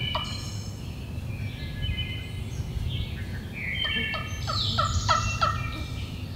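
Turkey yelping: a series of about five falling notes about four seconds in, with small songbirds chirping throughout.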